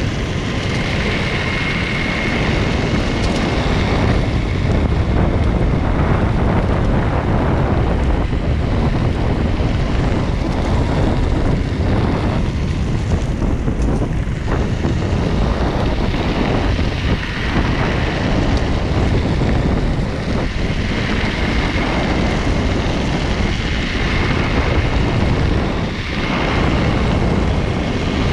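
MetroboardX electric all-terrain board rolling steadily over a gravel and dirt trail, its pneumatic tyres crunching, with heavy wind buffeting the low-mounted microphone. A thin high whine from the belt-drive motor fades in and out.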